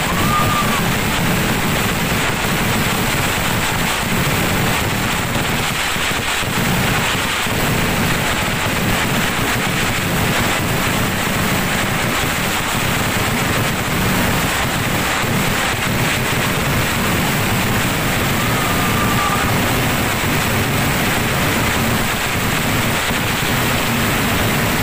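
A dense fireworks barrage at a Kerala temple festival: firecracker explosions so many and so fast that they merge into one loud, continuous crackling rumble with no break.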